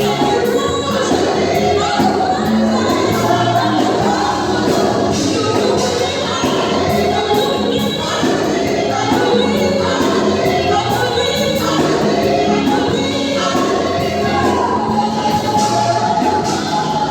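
Gospel choir singing with instrumental accompaniment and a steady beat.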